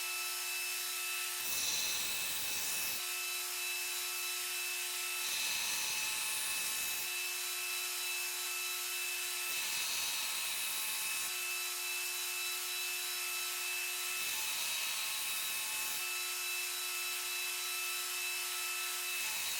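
Belt grinder with a fresh 60-grit belt running steadily while a Damascus steel knife blade is pressed against it in repeated passes to grind the bevels; each pass is a rasping grind of a second and a half to two seconds, about every four seconds, with the motor's steady hum between them.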